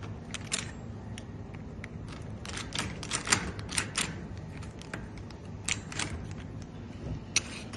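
Metal tool clicking and tapping against the lock mechanism of a drilled-out door lock while it is worked to open the door: irregular sharp clicks, coming thickest a few seconds in, with a couple more near the end.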